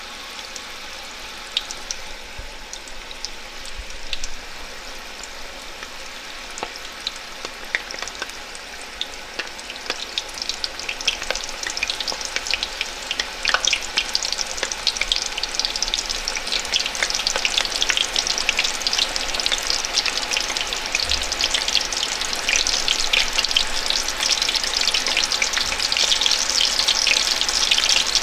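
Chicken frying in hot oil in a pan: a steady sizzle full of crackling pops, growing louder through the second half.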